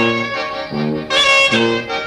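Instrumental hymn tune played by a clarinet, accordion and tuba trio: the clarinet carries the melody while the tuba plays low bass notes that change on each beat beneath the accordion.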